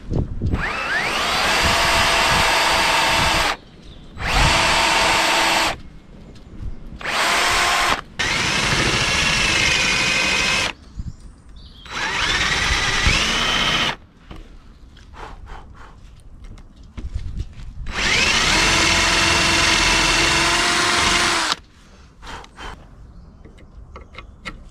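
Cordless drill boring bolt holes through the wooden stem and apron of a dinghy's backbone with a long drill bit, finishing holes already partly drilled. It runs in about six bursts of a few seconds each, with pauses between, and the motor's whine rises as each burst starts.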